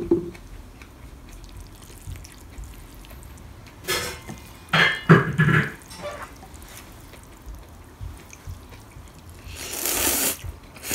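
Thin noodles in cold kimchi broth being slurped up from the bowl with chopsticks: a long wet slurp near the end, with a few shorter sounds about five seconds in.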